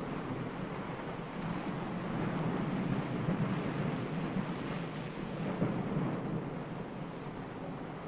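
A steady, low rushing noise, like wind or surf, that swells around the middle and eases off towards the end.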